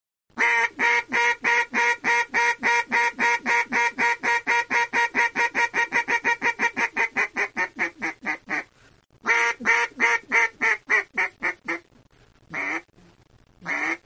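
Phone ringtone: a long run of short, identical buzzy tones, about four a second, quickening and fading slightly, then after a brief pause a shorter run, then a couple of single notes.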